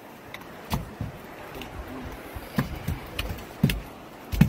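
Scattered thumps and knocks on a boat deck as red salmon are picked out of a dip net and dropped onto the deck, over a steady rushing background. The hardest knocks come near the end.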